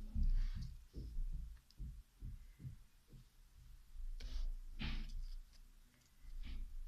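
Slime being squeezed and pressed by hand: a run of soft, low squelching thumps and small clicks, with two sharper squishes about four and five seconds in.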